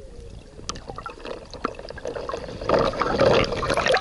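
Water gurgling and clicking around a camera held just under the surface, then louder sloshing and splashing from about two and a half seconds in as a dog wades through the water right beside it.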